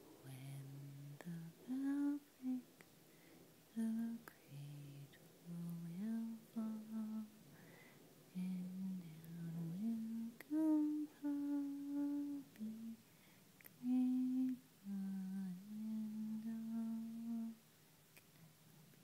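A person softly humming a slow lullaby melody: held notes stepping up and down in short phrases with brief pauses between them, stopping near the end.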